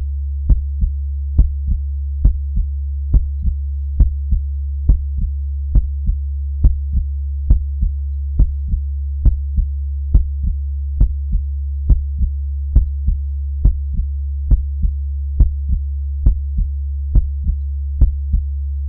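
Slow, steady heartbeat: a lub-dub pair of soft thumps a little under once a second, about 70 beats a minute, over a constant low hum.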